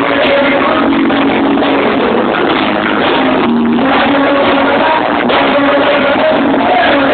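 Loud live band music in a rock style, with guitar, playing steadily.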